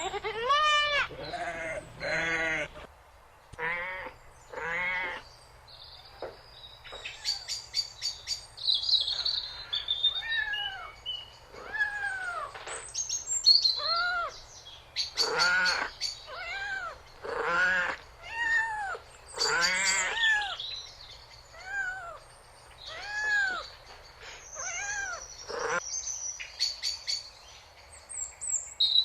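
An animal calling over and over in short calls, each about half a second long, rising and then falling in pitch, some in quick runs of two or three, with brief high chirps or clicks between them.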